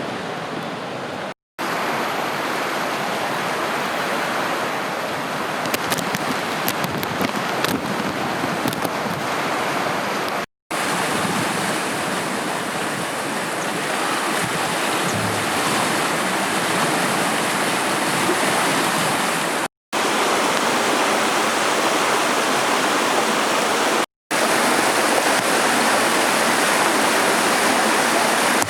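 Swollen floodwater rushing in a steady loud wash. The sound drops out four times for a split second where separate clips are joined.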